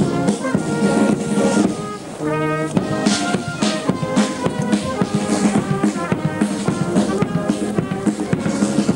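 Military brass band playing a march: trumpets and trombones over a steady drum beat.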